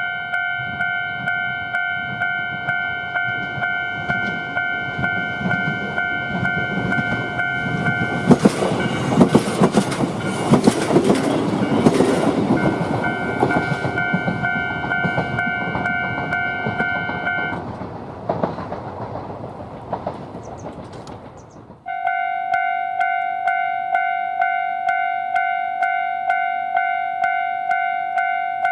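Japanese railway level-crossing warning bell ringing its 'kan-kan' at about two strikes a second while a Yoro Railway train passes over the crossing, its wheels clacking over the rail joints. The bell stops and the train noise fades, then the bell starts again abruptly near the end.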